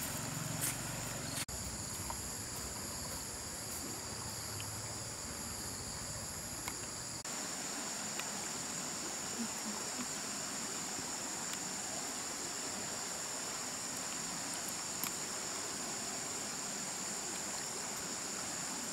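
Insects droning steadily in several high, even tones over the rushing of a flowing river. The drone changes abruptly about seven seconds in and then holds steady and stronger.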